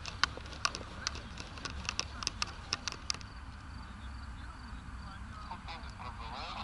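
Irregular sharp clicks, several a second, for about the first three seconds, over a steady low rumble of wind on the microphone; a faint voice near the end.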